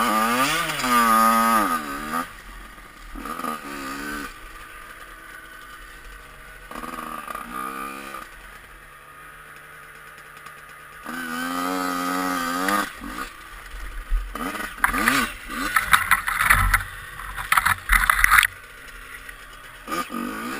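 Two-stroke single of a 2003 Yamaha YZ85 dirt bike revving up and falling back in several separate swells, dropping to a low idle between them. In the second half come a run of short, sharp throttle blips.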